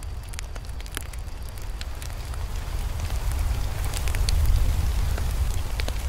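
Campfire burning: scattered crackles and pops of burning wood over a low rumble that swells and grows louder past the middle.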